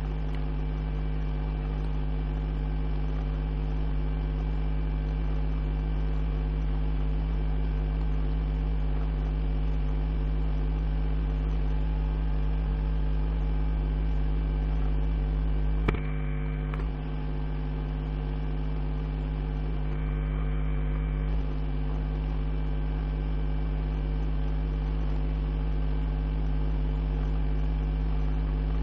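Steady electrical mains hum with its overtones over a faint hiss, and a single short click a little past halfway through.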